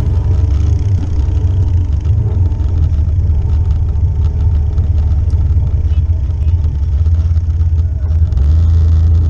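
Four-wheeler (ATV) engine running while riding a dirt trail, heard from a camera mounted on the front of the machine: a steady low rumble with scattered light clicks and rattles.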